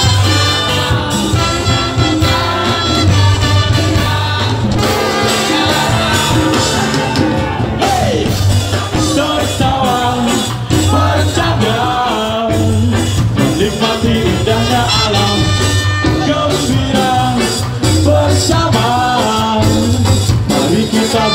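A ska band playing live at loud volume, with a steady beat and singing through much of it.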